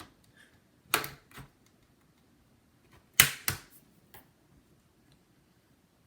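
A few sharp plastic clicks and taps from a laptop's case being handled, coming in two close pairs about two seconds apart.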